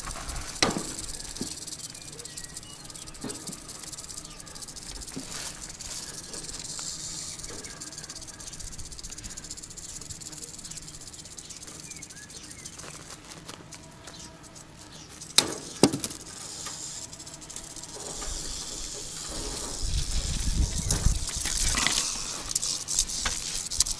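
Rattlesnake rattling, a high buzz that swells and fades, while tin snips cut the chicken wire it is caught in. Sharp snip clicks come about half a second in and twice in quick succession past the middle, with some handling noise near the end.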